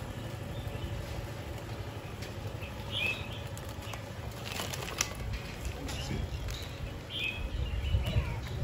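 Steady low rumble of wind buffeting the microphone outdoors, with a few short high chirps now and then and a single light click about halfway through.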